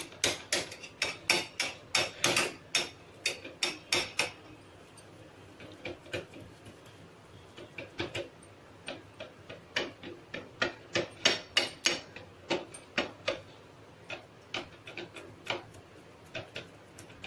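Flat metal spatula tapping and scraping against a ridged glass plate as a thick, sticky sweet mixture is pressed and smoothed flat: a long run of sharp clicks, about two or three a second, pausing briefly twice.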